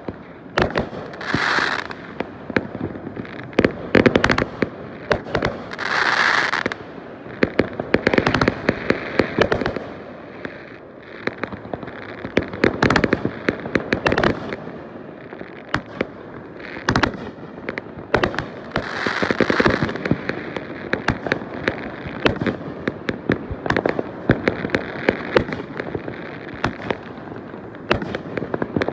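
Fireworks going off in a dense, continuous barrage: many sharp bangs and crackles, with louder hissing bursts about a second in, around six seconds in and near the twenty-second mark.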